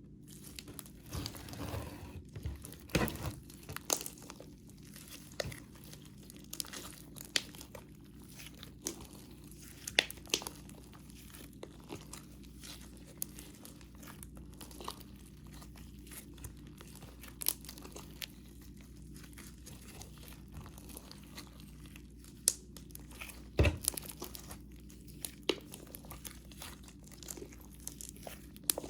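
Slime being kneaded and mixed by hand, making many small sticky crackles and pops, with a few louder squelches near the start and again late on.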